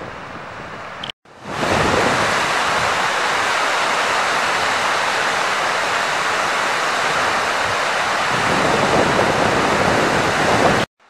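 The flooded River Suir rushing and churning as white water through the arches of a stone bridge, a steady loud rush. A brief break about a second in, after which the rushing is louder; it cuts off again just before the end.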